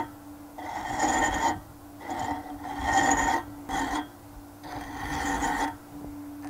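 Hand file rasping against a metal bolt shaft that spins in a wood lathe, in about four strokes of roughly a second each, with a high ring to each stroke. The lathe runs with a steady hum underneath.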